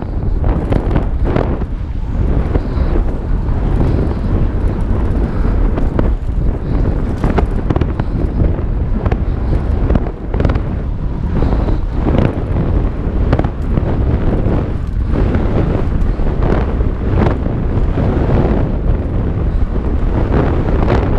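Wind buffeting a helmet-mounted GoPro HERO4 as a mountain bike descends singletrack at speed, over a constant rumble of tyres on dirt. The bike knocks and rattles irregularly as it goes over rough ground.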